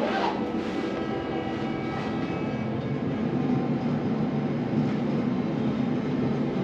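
High-speed passenger elevator descending: a steady rushing rumble in the car, with steady tones running over it.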